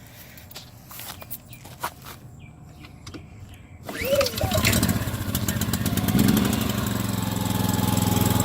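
Honda EB2800i inverter generator being started: a few light clicks, then about four seconds in the engine catches suddenly, surges briefly and settles into a steady run.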